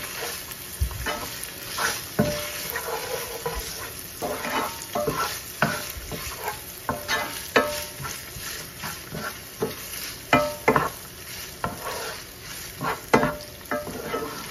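Ground pork, red onion and garlic sizzling in oil in a frying pan while a wooden spatula stirs them, scraping and knocking against the pan in uneven strokes, with a few louder knocks in the second half.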